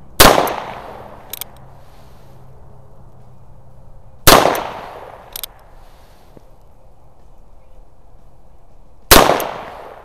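Three shots from a 1959 Ruger Single Six .22 Magnum single-action revolver, about five seconds apart, each ringing out briefly. About a second after each shot there is a light double click, the hammer being cocked for the next shot.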